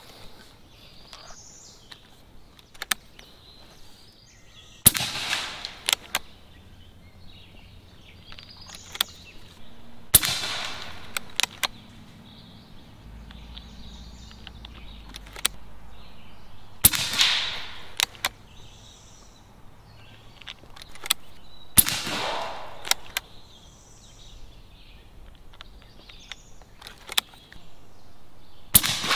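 Umarex Gauntlet .30 PCP air rifle with a moderator firing five shots about five seconds apart, each a sharp crack with a short tail. Fainter clicks come between the shots.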